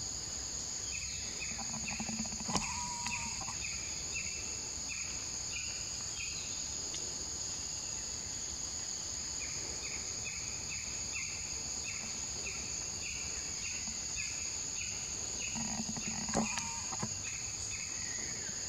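Forest insects droning steadily at a high pitch. Over the drone, a repeated chirping call comes about twice a second in two long runs, and a brief louder sound breaks in twice.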